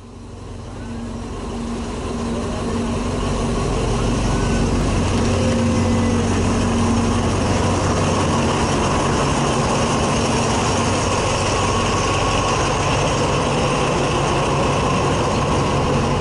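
State Railway of Thailand diesel locomotive passing at close range, its engine running with a steady low hum, then its passenger coaches rolling by on the track. The sound fades in over the first few seconds.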